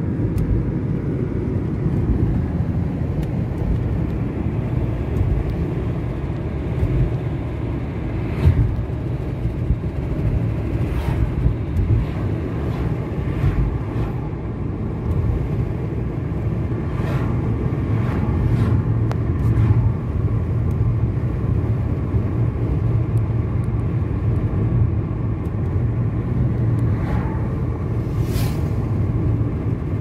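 Steady low road and engine rumble of a car driving, heard from inside the cabin, with a few brief clicks scattered through it.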